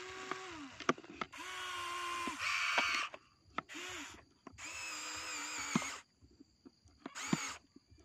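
Remote-controlled toy excavator's electric motors whirring in about five separate bursts as the boom and bucket move, each burst starting and stopping abruptly, with a few sharp clicks in between.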